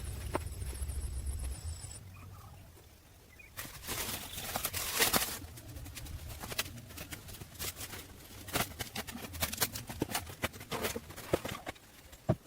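Irregular knocks and taps of manual building work, with a burst of scraping about four seconds in. A low hum runs under the start and stops about two seconds in.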